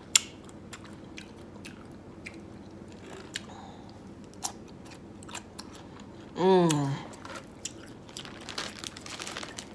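Crunchy biting and chewing of a Kool-Aid-soaked dill pickle, in scattered crisp crunches. About six and a half seconds in there is a short hum that falls in pitch, and near the end a plastic zip bag rustles.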